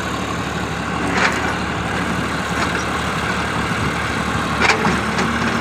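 An engine running steadily at idle, with two short sharp knocks, one about a second in and one near the end.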